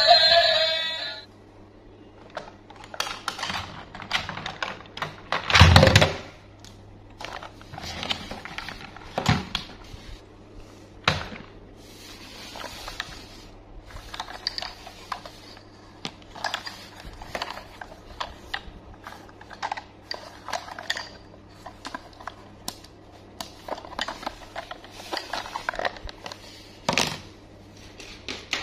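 Hard plastic toy handled in gloved hands: irregular clicks, taps and rattles of plastic parts, with a louder clatter about six seconds in.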